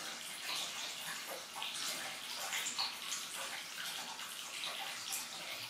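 Running water, a steady hiss with small splashy flickers throughout.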